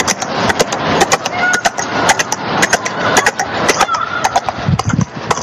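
A rapid, irregular run of sharp knocks and cracks over loud street noise, with a few short high-pitched calls or whistles.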